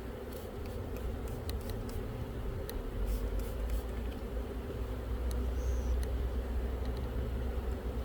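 Steady hum of a honeybee colony in an open hive over a low rumble, with a few short clicks scattered through.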